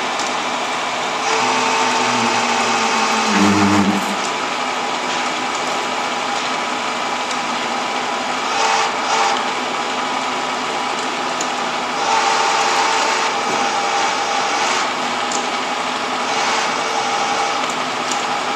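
Cincinnati No. 2 horizontal milling machine running under power: a steady mechanical whir with a gear whine, its tone changing a few times, with a brief low hum about three to four seconds in.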